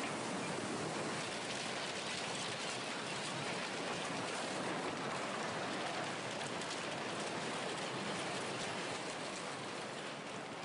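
Steady rushing noise of a tsunami flood surging through a town with its debris, with scattered faint crackles.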